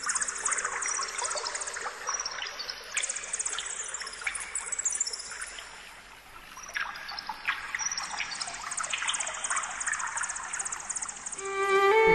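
Water trickling and splashing, with a fast, high chirping trill that comes and goes. Violin music starts near the end.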